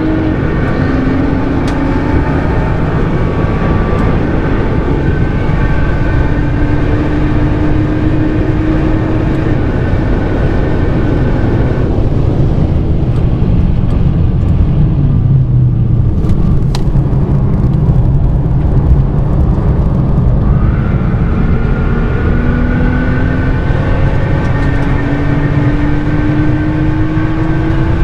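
Nissan GT-R R35's twin-turbo V6 with a Nismo titanium exhaust, heard from inside the cabin on track. The engine note rises steadily under hard acceleration, drops back for several seconds around the middle, then climbs again near the end.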